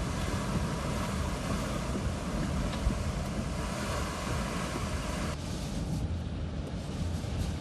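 Hurricane-force wind blowing hard with heavy low rumble of wind buffeting the microphone. The high hiss drops away abruptly about five seconds in.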